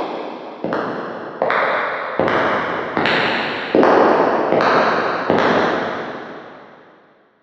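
Footsteps echoing heavily in a reverberant space, one step about every three-quarters of a second, getting louder as they approach. The last step rings out and fades to silence near the end.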